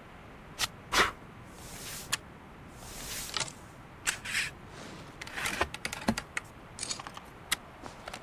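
A flintlock pistol's lock being worked by hand: a run of short sharp clicks and brief scrapes, the loudest click about a second in, with no gunshot.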